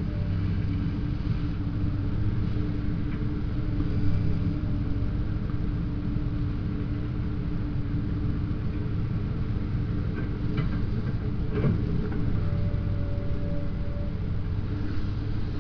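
Komatsu PC210 hydraulic excavator's diesel engine running steadily as the machine digs and swings, a constant low hum. A couple of brief knocks come about two-thirds of the way through.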